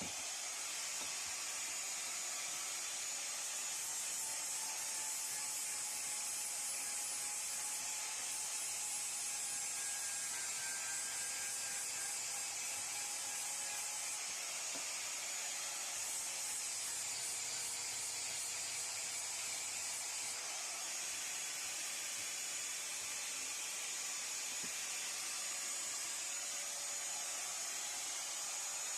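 Power grinder running steadily against the clamped cast-iron vise jaws, a continuous hiss of abrasive on metal with a faint motor whine that drifts slightly in pitch under load, grinding off casting marks to level the jaws.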